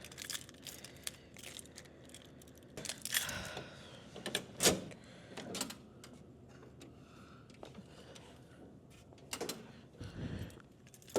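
Scattered clicks, knocks and rustling from items being handled at close range, with one sharp knock about halfway through.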